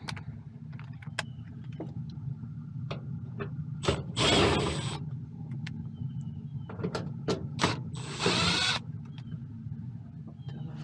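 Furnace parts and tools being handled: scattered clicks and knocks, with two longer scraping sounds about four and eight seconds in, over a steady low hum.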